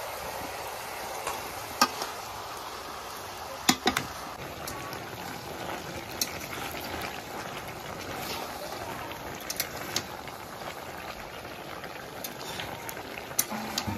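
Chicken curry sizzling and simmering in an iron kadai, a steady hiss, with a metal spatula clinking and scraping against the pan several times as the pieces are stirred.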